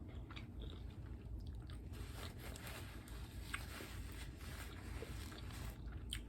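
Chewing a taco close to the microphone, with scattered small crunches and mouth clicks.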